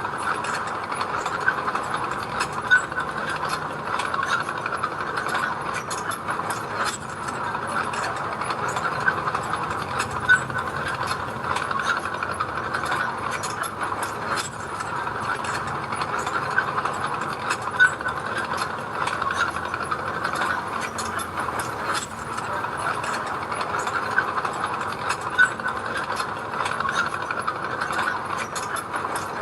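Bulldozer at work: its diesel engine running steadily, with quick metallic clicking and clanking scattered throughout and a few louder clanks.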